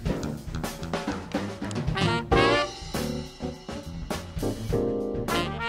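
Jazzy instrumental music with horns over a drum kit.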